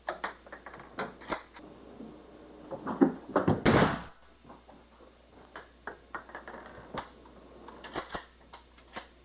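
Scattered knocks and clicks, door-like. About three and a half seconds in comes one louder, half-second burst of noise.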